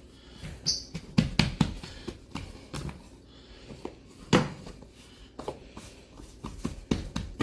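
A series of short thumps and taps of cinnamon-roll dough being handled and worked on a floured kitchen counter, the loudest knock about four seconds in, with a brief hiss just under a second in.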